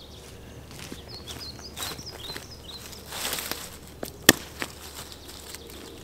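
Footsteps crunching through dry leaf litter on a woodland floor, with a few short bird chirps in the first half. One sharp crack, the loudest sound, comes a little over four seconds in.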